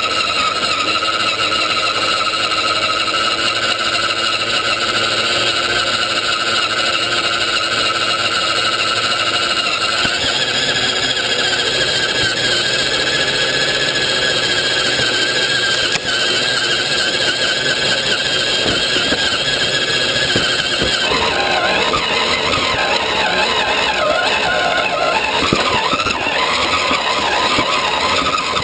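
Electric motor and gearbox whine of an RC scale 4x4 crawler, heard from inside its hard body while it drives. A steady high whine that steps up in pitch about ten seconds in, then turns uneven and wavering from about twenty seconds in.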